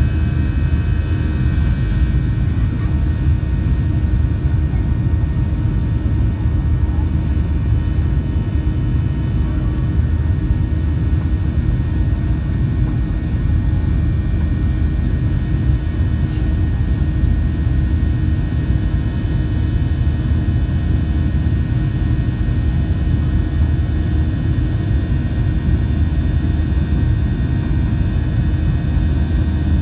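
Steady low roar of a Boeing 737-700's CFM56-7B turbofan engines heard inside the passenger cabin during the climb after takeoff.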